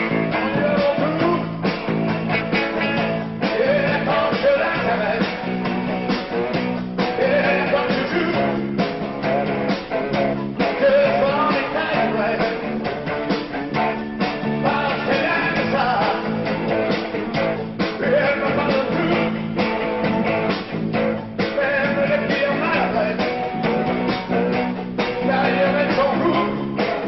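Rock band music from a live rehearsal recording, with guitar; it sounds dull, with no treble.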